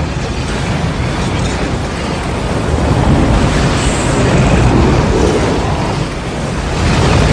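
Tornado sound effect: loud, continuous wind noise with a deep rumble, swelling about three seconds in, easing briefly near six seconds and rising again near the end.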